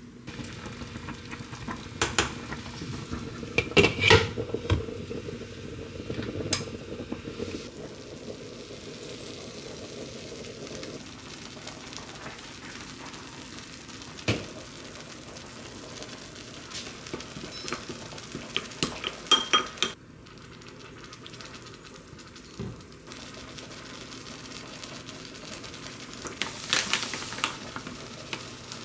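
Kitchen prep for a seasoning sauce: scattered clinks and taps of a wooden spoon and ingredients going into a small glass bowl, over a steady hiss.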